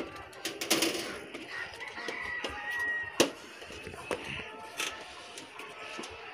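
A rooster crows once, from about a second and a half in to about three seconds in. Sharp clicks and knocks come from hand tools on the aluminium dish panels, the loudest just after the crow.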